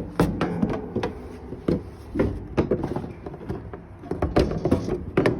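Irregular knocks and clicks of drop-spreader chute parts being handled and fitted by hand, about a dozen sharp taps spread unevenly through the stretch.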